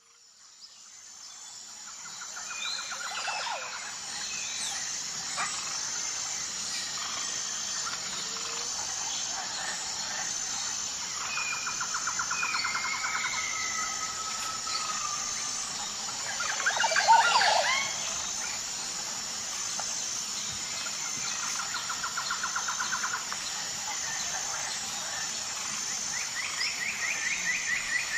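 Outdoor chorus of insects: a steady high-pitched buzz with a regular pulsing. Bird chirps and short trills sound over it, with a louder cluster of calls about 17 seconds in. The sound fades in at the start.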